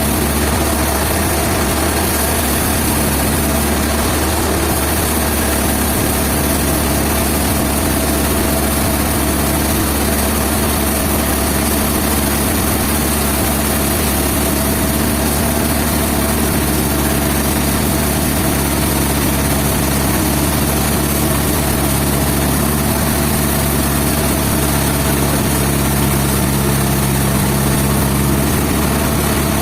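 An engine running steadily at a constant speed, with an even hiss over it throughout.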